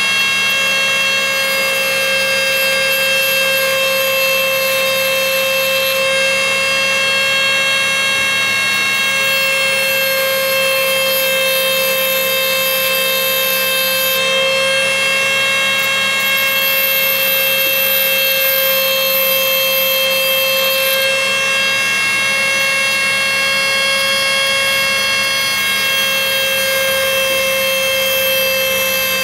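Dremel rotary tool on a flex-shaft pen attachment running at steady speed with a high whine, its diamond-plated cutting wheel grinding into a glass pipe. A high hiss from the cut comes and goes every few seconds as the wheel is rocked back and forth against the glass.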